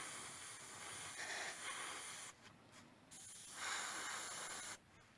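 Airbrush spraying paint, a steady hiss of air in two bursts: the first stops about two seconds in, and the second starts a moment later and cuts off near the end.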